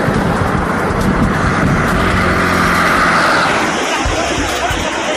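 Road traffic on a highway, with a vehicle passing that swells to a peak about three seconds in and fades. It then changes to a steadier outdoor noise with a higher hiss.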